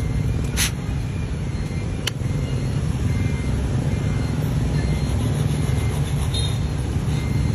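Steady low rumble with no stroke rhythm, with two brief sharp clicks, one about half a second in and one about two seconds in.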